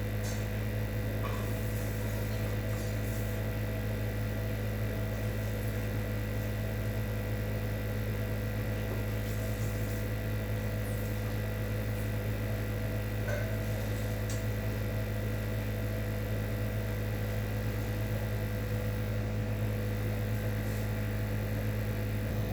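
A steady low hum with a few faint higher tones above it.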